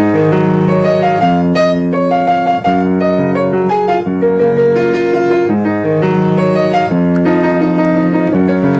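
Background music played on piano, a melody over held chords at a steady level.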